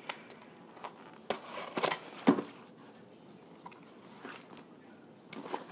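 USPS Priority Mail cardboard box being handled and opened: a few short scrapes and knocks, the loudest a little over two seconds in, with quieter handling noises after.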